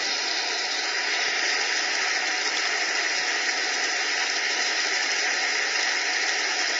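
A large audience clapping in steady, sustained applause.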